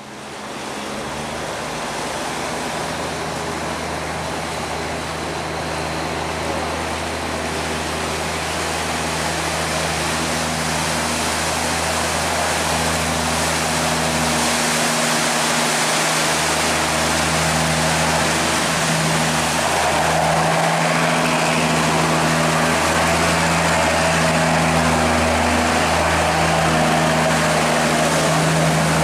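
Engine of a heavily laden wooden sand boat running steadily as the boat approaches and passes close by, with a steady hum over the rush of churning wake water. Both grow louder as it nears.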